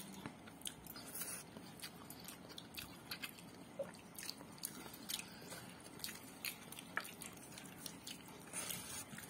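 Faint eating-by-hand sounds: fingers mixing and squeezing chicken biryani rice on a plate, with soft chewing. Short clicks come at an irregular pace of a few a second.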